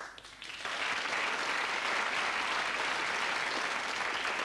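Studio audience applauding, swelling within the first second and then holding steady.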